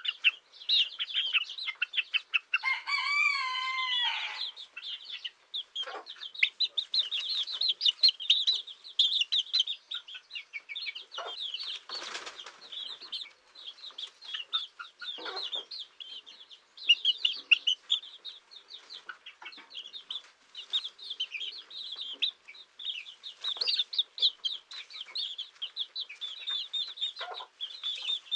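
Many chicks peeping in a dense stream of high cheeps, with a hen's low clucks now and then. A louder, drawn-out wavering call stands out about three seconds in.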